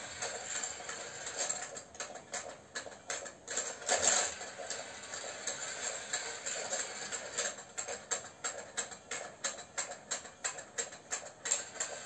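Battery-powered stair-climbing toy with little puppy figures running: a steady motor hum under a run of plastic clicks as the figures are carried up the steps, settling into about two to three clicks a second in the second half, with one louder knock about four seconds in.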